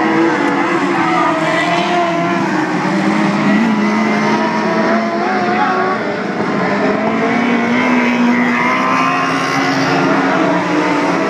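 Several race car engines running hard together, their pitches rising and falling as the cars accelerate and lift around the track.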